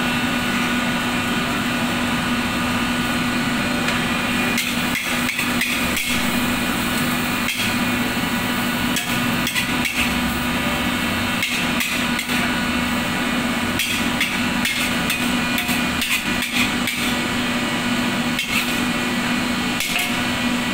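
Metal wok spatula scraping and knocking against the wok, with many sharp metallic strikes from about four seconds in, over a steady hum.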